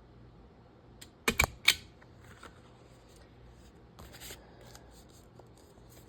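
Long-reach stapler snapping shut through folded journal pages: a few sharp clacks with a low thump about a second in, followed by paper rustling and small clicks as the pages are handled.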